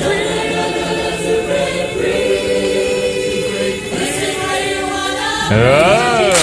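Youth barbershop chorus singing a cappella in close harmony, holding sustained chords. About five and a half seconds in, the voices swoop up and back down in pitch, the loudest moment.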